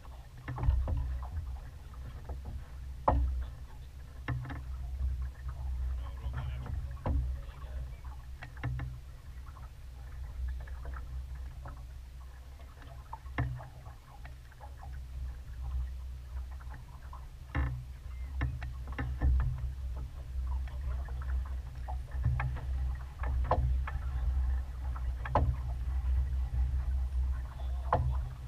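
Sailboat under way: a continuous low rumble that swells and fades, with water slapping and splashing against the hull in irregular short knocks throughout.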